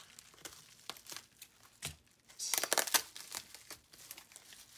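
Packaging being unwrapped by hand: scattered crinkles and crackles, with a denser, louder burst of crinkling lasting about half a second, about two and a half seconds in.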